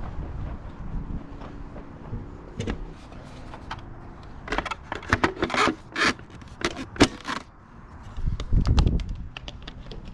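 A quick run of sharp clicks and scrapes from small hard parts being handled, followed near the end by a dull thump.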